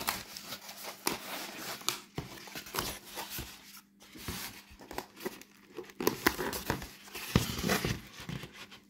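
Cardboard mailer being opened and handled by hand: irregular crinkling, rustling and tearing of cardboard, busier and louder about six to eight seconds in.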